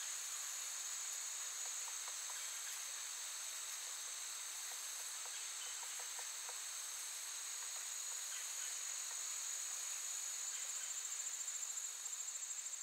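Insect chorus: a steady, high-pitched shrill drone, with a faster pulsing trill joining near the end.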